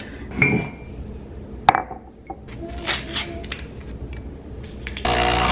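A ceramic mug clinks and knocks on a stone countertop, a few sharp clinks with short ringing, the loudest about a second and a half in. Near the end an espresso machine's hot-water pump starts abruptly and runs with a steady buzzing hum.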